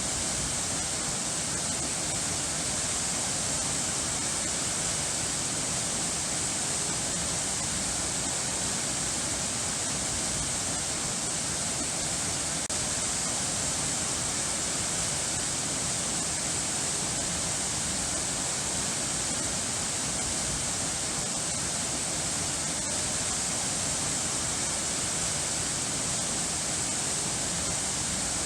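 Steady, unchanging rush of running water: a dense hiss with no music or birdsong.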